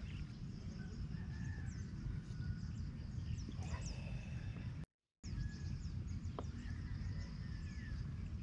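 Birds chirping and calling over a steady low rumble of outdoor ambience. The sound drops out to total silence for a split second about halfway through.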